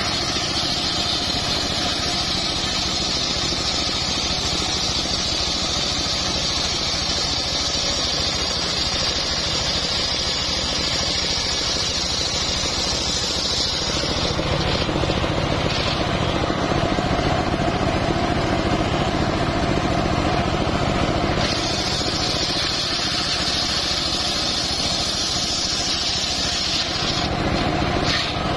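Homemade engine-driven circular sawmill ripping a sengon (albizia) beam, with the engine running steadily under the hiss of the blade cutting the wood. The cutting hiss stops about halfway through and starts again with a second pass a few seconds later.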